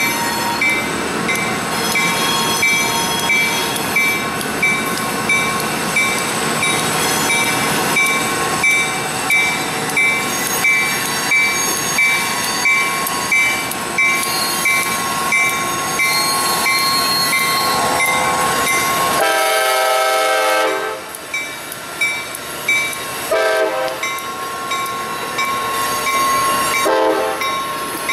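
Railroad grade-crossing bell ringing at about one and a half strikes a second as a freight train's diesel locomotives approach. About two-thirds of the way in, a locomotive horn sounds a long blast, then shorter blasts as the locomotives reach the crossing.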